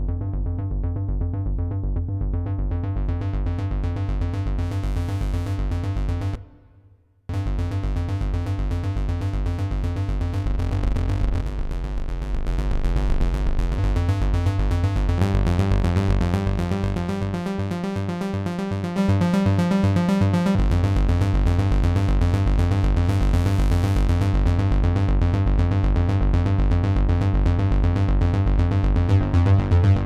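Synth bass from the Cherry Audio DCO-106, a software emulation of the Roland Juno-106, playing its 'Reed Bass' preset as a fast repeating bass pattern. It cuts out briefly about six seconds in, and its tone changes several times as the synth's sliders (high-pass filter, sub-oscillator level) are moved.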